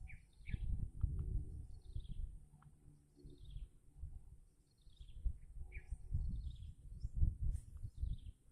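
A bird repeatedly calling short, falling chirps, about one a second, over uneven low rumbling noise.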